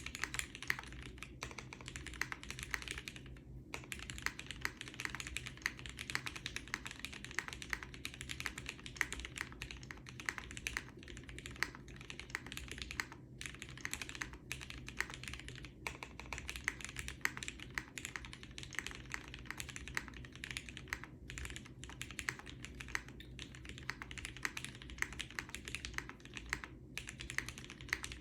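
Custom mechanical keyboard with lubed Cherry MX Black linear switches on a polycarbonate plate, foam-damped case and GMK keycaps, being typed on steadily and fast, with a few brief pauses.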